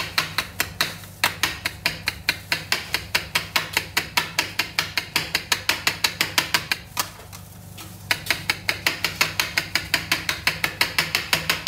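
Kitchen knife rapidly chopping canned pineapple and fruit cocktail on a granite countertop: quick, even knocks of the blade on the stone, about five a second, with a short pause near the middle.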